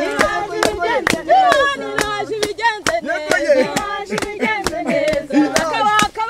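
A group of people singing a worship song together, with hand clapping in a steady beat about twice a second.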